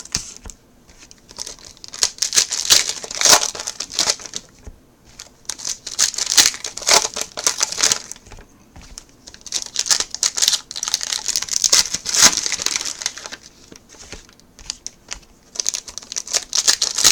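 Trading-card pack wrappers crinkling as packs are torn open and handled, in several bursts with short lulls between them.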